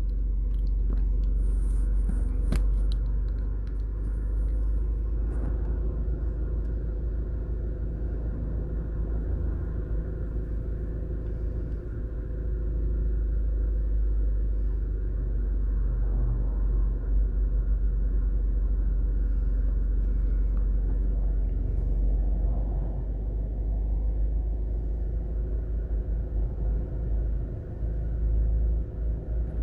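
Street traffic: a steady low rumble of vehicles on a wide road, with an SUV and a dump truck passing near the end.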